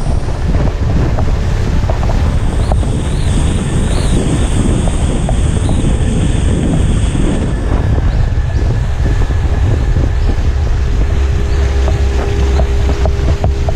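Heavy wind buffeting on an action camera's microphone moving fast over water, with the rush and spray of the boat's wake underneath.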